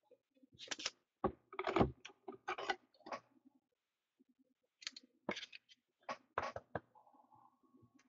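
A run of sharp clicks and taps in two bursts, the second starting about five seconds in.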